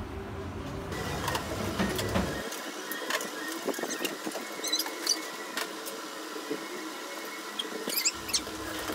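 Toy broom and plastic dustpan scraping and tapping on a carpet, with scattered light clicks and a few short high squeaks.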